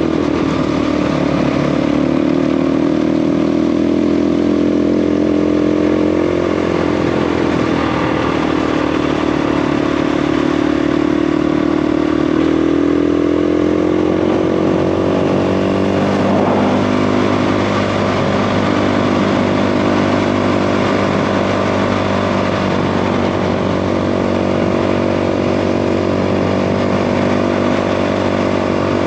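KTM 350 EXC single-cylinder dirt bike engine running at steady cruising revs while riding a gravel road, its pitch easing down about seven seconds in and climbing back up a few seconds later. A constant rush of wind and tyre noise sits underneath.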